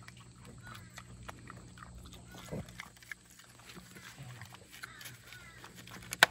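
Pig eating vegetable scraps from a plastic tub, chewing with small clicks and nosing the tub along the dirt. One sharp knock near the end.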